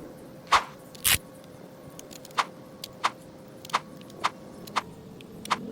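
A series of short, sharp clicks and ticks, about ten, spaced irregularly over a faint steady hum, as small objects are handled.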